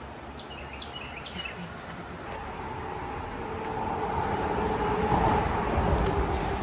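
A passing vehicle: a rumble that grows steadily louder to a peak about five seconds in, with a steady hum in its later part. A bird chirps a few times about a second in.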